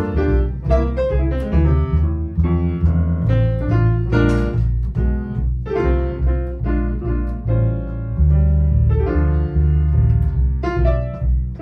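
Grand piano and plucked upright double bass playing jazz together: the bass sounds a line of steady low notes under piano chords and runs.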